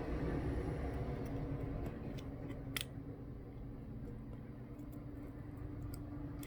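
A few faint, sharp clicks and ticks of a small pry tool working against a smartphone's internal parts, over a steady low background hum. The clearest click comes a little under three seconds in.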